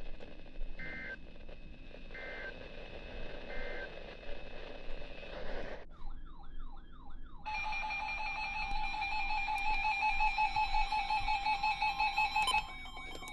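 Emergency Alert System tones over weather-radio static. First come three short two-pitch data bursts, the digital end-of-message code closing the previous warning. About six seconds in, a warbling, siren-like tone sounds for a second and a half, then the steady two-tone EAS attention signal runs for about five seconds and cuts off.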